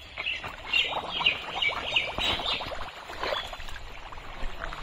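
Thick wet mud squelching and splattering in irregular slaps as a man wades through a drained pond and scoops sludge with a metal basin.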